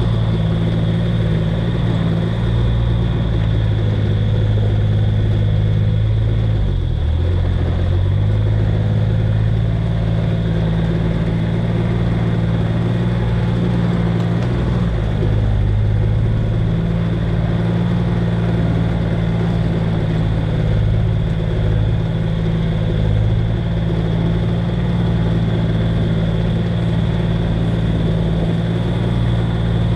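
Engine of a slow-moving farm vehicle running steadily at low revs, easing off and picking up again about seven seconds in.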